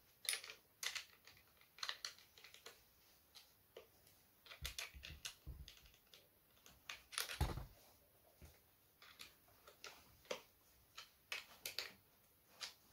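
Small metal and plastic parts of a chainsaw attachment kit being handled and hand-tightened: irregular light clicks and taps, with one louder knock a little past halfway.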